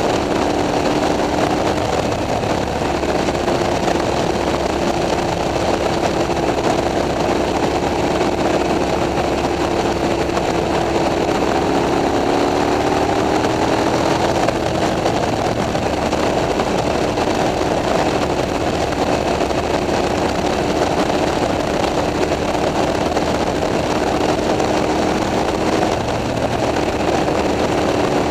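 KTM 990 SMT's V-twin engine with a Leovince exhaust running at a steady cruise, with wind rush over the bike. About halfway through the revs rise a little and then drop back, and they change again near the end.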